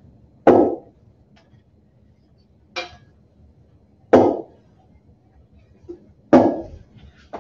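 A flour-dusted 8x8 metal cake pan knocked against the edge of a garbage can to knock loose flour out: three sharp knocks a couple of seconds apart, each with a brief ring, and a lighter tap between the first two.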